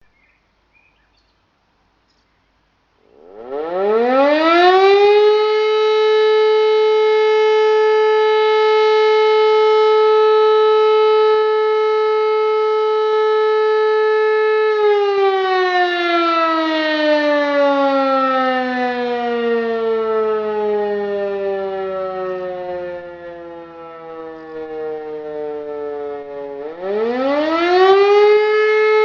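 E57 electric motor siren sounding the first tone of the German fire alarm signal. After about three seconds of quiet it winds up to a steady, single-pitched howl and holds it for about ten seconds. It then winds slowly down in pitch and loudness as the rotor coasts, and near the end it winds up again for the next tone.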